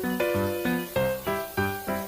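Background music: a plucked or keyboard-like melody of evenly paced notes, about three a second.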